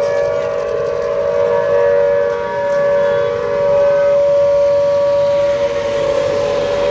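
A civil defence warning siren sounds a loud, steady held tone, the signal of a public alert.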